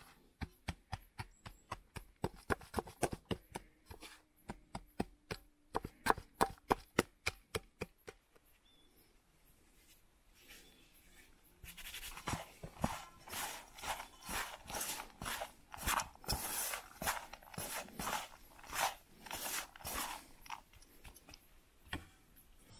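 Knife chopping food on a cutting board: a run of quick, sharp strokes, three or four a second. After a short pause, a second run of duller, longer strokes follows at about two a second.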